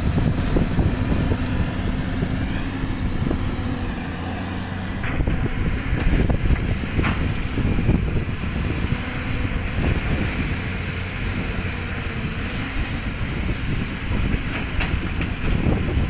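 Caterpillar 320D excavator's diesel engine running steadily as the machine works, with a few sharp knocks along the way.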